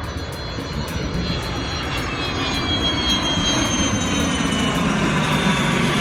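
An airplane's engine growing louder as it flies past, its high whine slowly falling in pitch.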